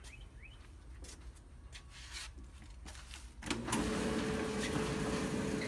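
A few light clicks, then about three and a half seconds in a Kenmore electric dryer starts up and runs with a steady hum of motor and drum. It runs with its start switch bypassed by wires joined together, which shows the start switch is the faulty part.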